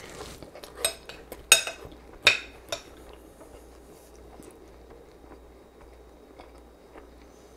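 A metal spoon scraping and clinking against a glass bowl of rice and meat, with a few sharp clinks in the first three seconds. After that come faint mouth sounds of chewing.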